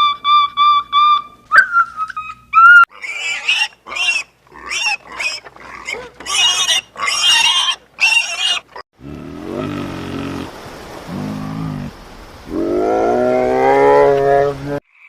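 A run of different animal calls edited back to back. First come short repeated pitched notes, then a string of shrill squeals and squawks, then lower drawn-out calls that rise in pitch and are loudest near the end, before cutting off suddenly.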